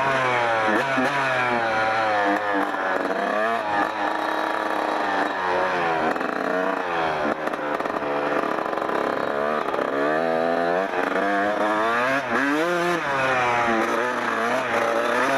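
1994 Kawasaki KX 125's single-cylinder two-stroke engine under way, its pitch repeatedly climbing and dropping back as the throttle is opened and closed.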